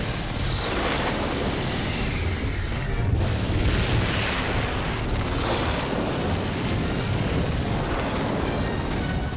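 Cartoon sound effects of lightning and deep rumbling booms under music, a continuous dense wash of sound that swells about three seconds in.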